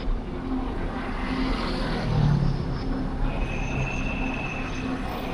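Street traffic noise with a low vehicle engine hum that swells about two seconds in, and a thin, steady high-pitched tone from about three to five seconds in.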